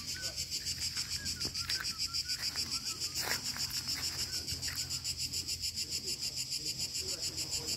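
Insects chirring in a fast, even pulse of about ten beats a second, unbroken throughout, with a short burst of noise about three seconds in.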